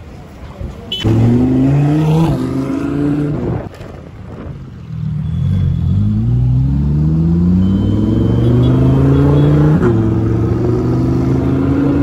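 Lamborghini Huracán Performante Spyder's V10 engine. It revs loudly about a second in, then accelerates away with its pitch climbing steadily for about five seconds. The note changes about two seconds before the end and then runs steady.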